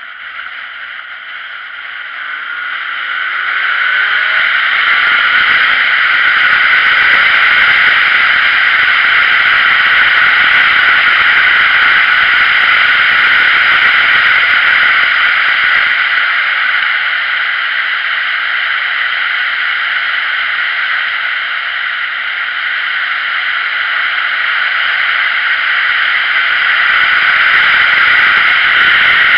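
Wind rushing over the microphone of a camera on a moving motorcycle, a steady hiss that grows louder over the first few seconds as the bike speeds up and then holds. The motorcycle's engine is faintly heard rising in pitch beneath it as it accelerates, early on and again later.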